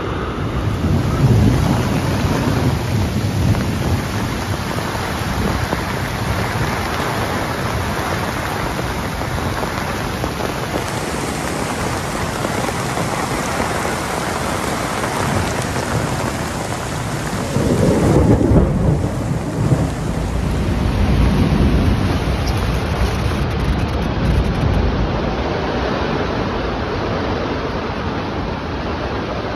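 Heavy rain pouring in a thunderstorm, a steady dense hiss. Deep rumbles swell about two seconds in and again a little past halfway.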